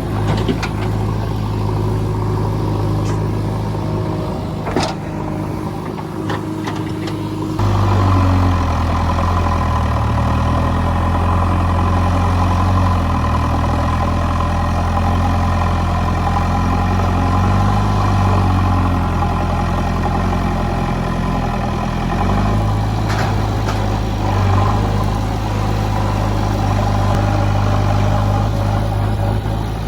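JCB backhoe loader's diesel engine running, stepping up from a lower speed to a higher, louder speed about a quarter of the way in, its pitch wavering as it works under hydraulic load, then dropping back to a lower speed about three quarters of the way in. A few sharp knocks sound near the start and again later.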